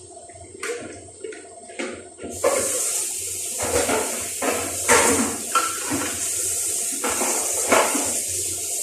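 A kitchen tap is turned on about two seconds in and runs steadily into the sink, with utensils or dishes knocking now and then.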